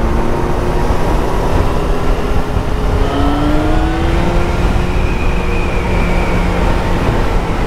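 Motorcycle engine running under way as the bike picks up speed, its pitch rising slowly in the middle, over a steady rush of wind noise.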